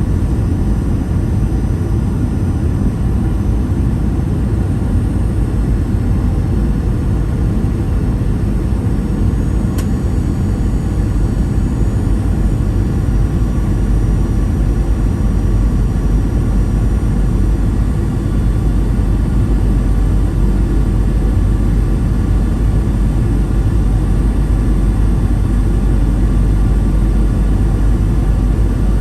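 Steady cabin noise inside a Boeing 737-800 at a window seat: a low rumble of the engines and airflow with faint, steady whining engine tones above it.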